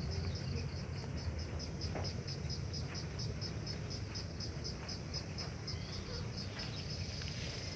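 An insect's high-pitched song, a rapid even pulsing of about six pulses a second that merges into a steady trill near the end.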